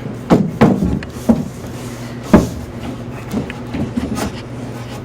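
Irregular knocks and clunks of 2x4 framing lumber and hand tools being handled, about seven of them, the loudest about two and a half seconds in, over a steady low hum.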